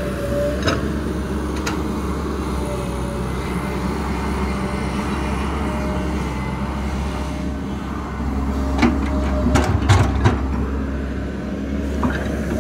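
XCMG XE135B hydraulic excavator running steadily under load as it digs and lifts a bucket of soil. A cluster of sharp knocks rings out about nine seconds in.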